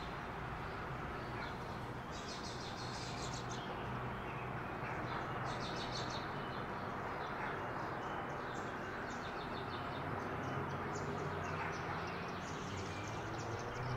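Songbirds chirping in short rapid trills, a few bursts early and more often in the second half, over a steady outdoor background hum.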